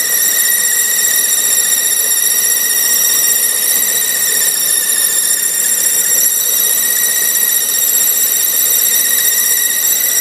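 BMW E46 330Ci power steering system whistling: a steady high-pitched whistle with overtones that holds one pitch throughout, the sign of a power steering fault.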